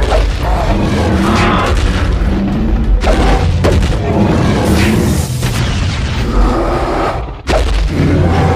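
Action-cartoon soundtrack: loud music with heavy booms and impacts.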